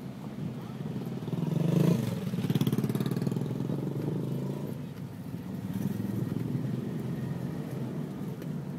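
A motor vehicle engine running, swelling louder about two seconds in and then holding a steady drone.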